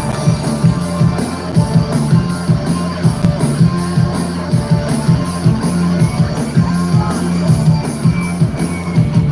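Instrumental passage of an upbeat trot backing track through a stage PA, with guitar over a strong bass line and a steady quick beat, no singing.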